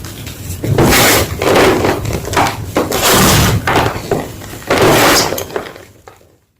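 Block of gym chalk being crunched, with about five loud crumbling crunches, each about half a second long. The crunching fades out near the end.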